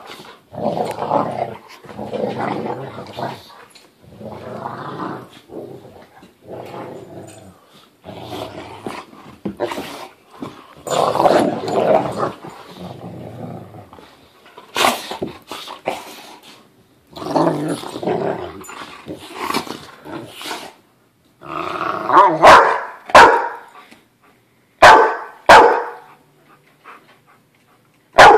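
Two dogs play-fighting: a long run of rough, drawn-out play growls, then, about two-thirds of the way through, several sharp, loud barks.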